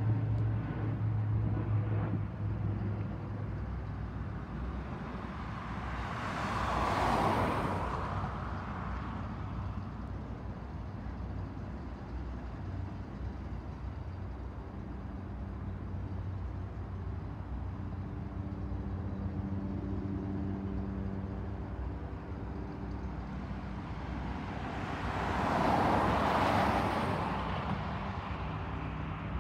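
Two road vehicles pass by, each swelling and fading over a few seconds, about seven seconds in and again near the end. Underneath runs the steady hum of BNSF diesel locomotives idling at the head of a stopped coal train.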